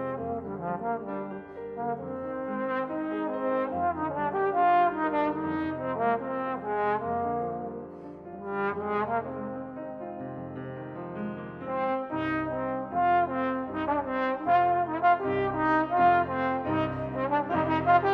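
Trombone playing a melodic line with piano accompaniment in a classical piece for trombone and piano. From about twelve seconds in, the piano adds deep bass notes.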